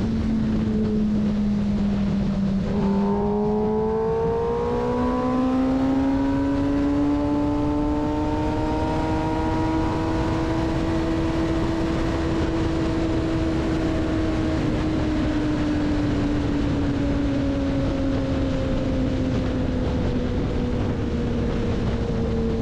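Kawasaki Ninja ZX-10R inline-four engine heard from the moving bike at speed, over a steady rush of wind and road noise. The engine note sags, climbs sharply about three seconds in as the throttle opens, then holds high and eases slowly down.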